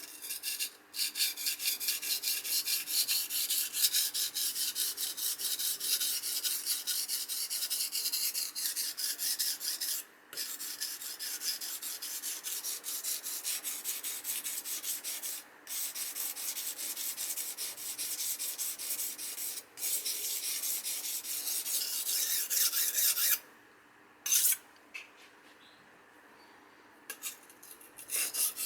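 Kitchen knife blade scraping in quick back-and-forth strokes across the coarse side of a wet whetstone, a continuous rasping rub. It breaks off briefly a few times and pauses for several seconds near the end before the strokes resume.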